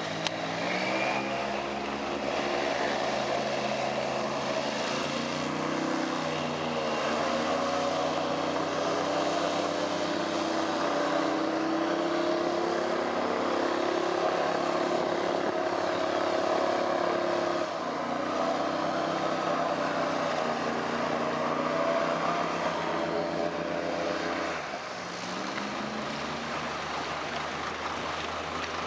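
Airboat's engine and large caged air propeller running at speed. The engine note climbs about six seconds in, drops near eighteen seconds, and dips again near twenty-five seconds before rising back.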